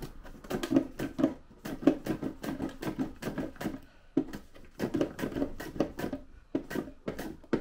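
Plastic vegetable slicer being handled on a worktop: an uneven run of knocks and scrapes, two or three a second.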